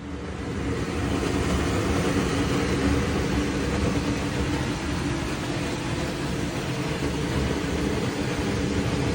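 Range hood blower fan spinning up about a second in, then running steadily: a loud rush of air over a low motor hum.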